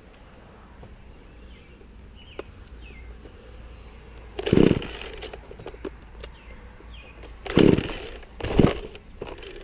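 Poulan Pro chainsaw's starter cord pulled three times in short rasping bursts, the engine not catching. Faint bird chirps underneath.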